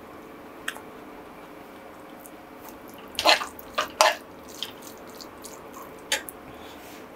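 Oil heating in a non-stick tawa on a gas stove: a steady low hiss with scattered sharp pops and crackles, the two loudest about three and four seconds in.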